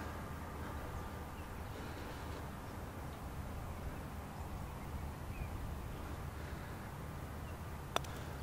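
Quiet outdoor background with a low steady rumble, then a single sharp click near the end: a putter striking a golf ball.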